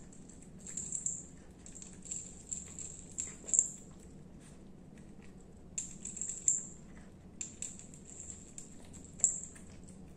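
A cat eating wet canned pâté from a plate: wet chewing and mouth sounds, with the small bell on its collar tinkling in short, high bursts as its head moves.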